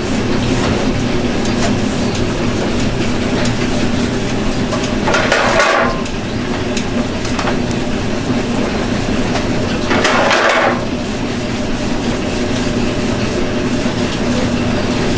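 Kitchen cooking sounds: a steady machine hum under scattered clicks and knocks of utensils, with two short hissing bursts, about five and ten seconds in.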